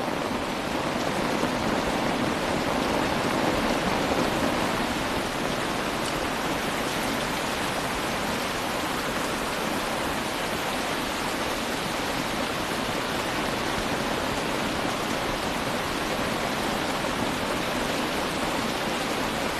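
Heavy rain pouring down steadily on open umbrellas.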